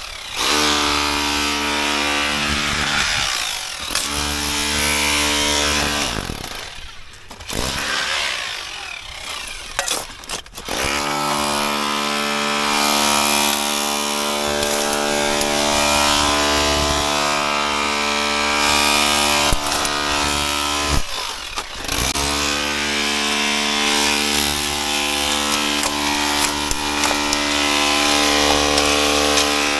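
A power saw running and cutting, with a steady motor note that slows and picks up again several times, including a longer lull about a third of the way in.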